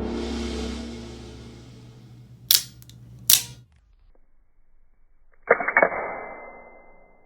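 Cheap out-the-front switchblade knife firing: two sharp snaps of the spring-driven blade shooting out and back, under a second apart, then about five and a half seconds in a quick burst of snaps with a brief metallic ring.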